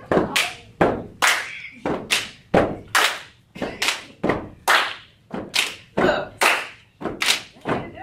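A group of dancers clapping their hands and stomping in a steady rhythm, about two beats a second, each stroke sharp with a short echo after it.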